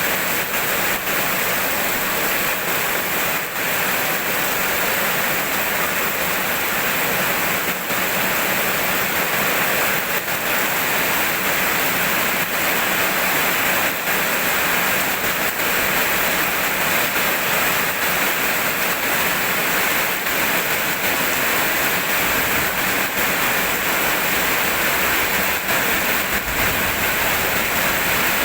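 Steady heavy rain: a dense, even hiss of falling water with no let-up and no thunder.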